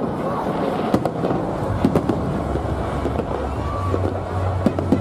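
Fireworks display popping and crackling, with sharp bangs at irregular intervals. A low steady hum sets in about two seconds in.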